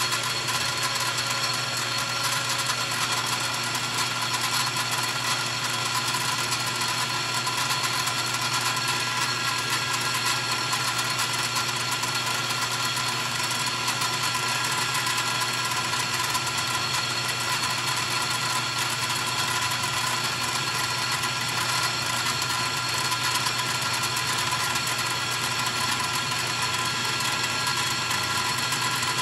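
Metalworking machine tool running steadily, a whine of several fixed tones over a noisy hiss, machining a chainsaw cylinder to take a few thousandths off and tighten its squish.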